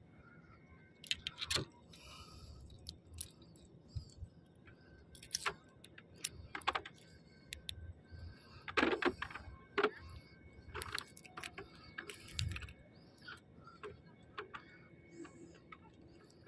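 Light, irregular metallic clicks and jingles of fishing tackle being handled: a small metal jig lure and its hooks knocking against the rod and reel.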